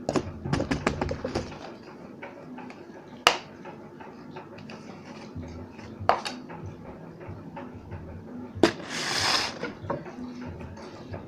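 Slime being handled and pressed in its container: a quick run of clicks and crackles at the start, single sharp pops every few seconds, and a short hiss about nine seconds in.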